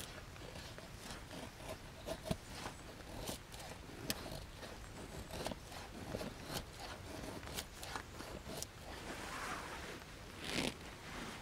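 Dry tinder and thin twigs handled by hand: scratchy rustling and tearing with many small sharp snaps and clicks, and a louder rustle near the end.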